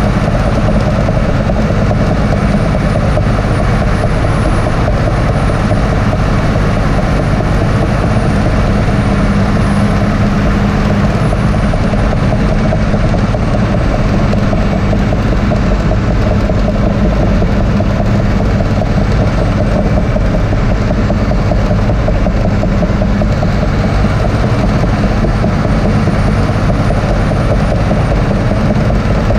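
Cat D6T LGP dozer's six-cylinder diesel engine running steadily under load while the blade pushes soil, heard from inside the cab. It is a constant, even drone with a faint high whine above it.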